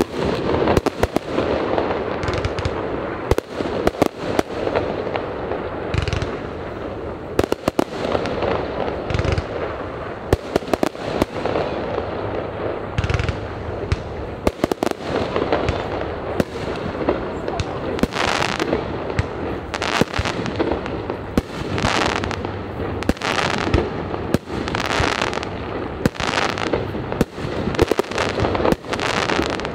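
Aerial firework shells bursting in a rapid, irregular series of sharp bangs and pops. In the second half the bursts come as longer, fuller blasts about once a second.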